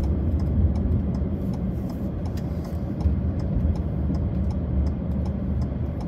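Car driving slowly, heard from inside the cabin: a steady low engine and road rumble with a light tyre hiss.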